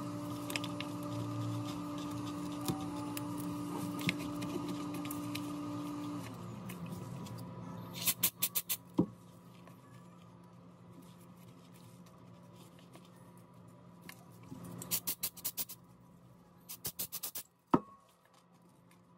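A steady hum with a held tone that slides down and stops about six seconds in. After it come several short bursts of rapid clicking and crackling, with a single sharp snap near the end, as a flat metal pry tool works under the cracked back glass of a Huawei Mate 30 Pro, breaking its adhesive.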